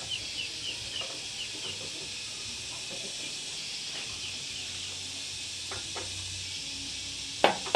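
Steady outdoor hiss with short high chirps in quick runs, twice. Near the end, loud sharp ringing strikes begin, about three a second.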